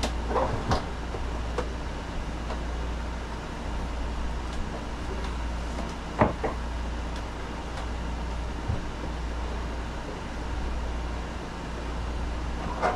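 A few knocks and clatters as the older Sleep Number bed's plastic air pump and its hoses are handled and set down on the bed base, about half a second in, twice around six seconds in, and near the end, over a steady low hum.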